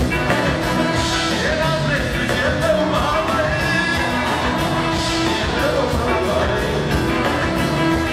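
Live Ethiopian pop band playing a song: a male singer's voice over electric guitar and a drum kit keeping a steady beat.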